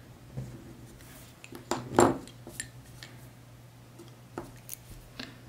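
Faber-Castell Polychromos coloured pencils and a pencil extender clicking and clinking against each other and the table as pencils are put down and picked up: a string of sharp clicks, the loudest about two seconds in.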